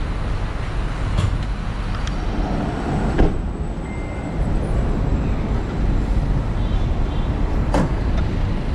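Steady low rumble of traffic, with a car door of the Beijing X7 SUV shutting with a thump about three seconds in and a sharp click near the end as the bonnet latch is released.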